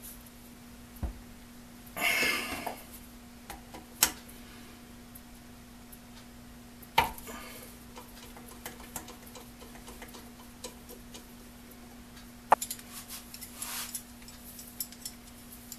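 Scattered clicks and knocks of small metal pump parts being handled, set down and fitted into a bench vise, with a couple of short rustles. A faint steady hum runs underneath.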